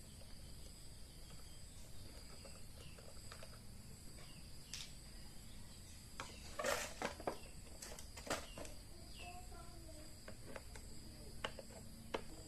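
Scattered light clicks and knocks, with a short scraping rattle about seven seconds in, over a steady high-pitched whine.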